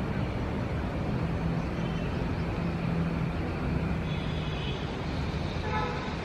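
Steady rumble of city road traffic, with vehicle engines running. A short pitched sound comes near the end.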